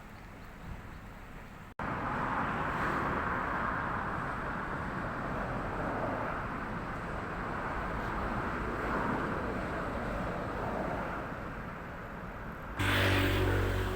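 Electric commuter train running past, a steady rumble and rail noise. The sound drops out for an instant about two seconds in and comes back louder. Near the end it switches abruptly to a louder, deeper hum with a low pitched drone.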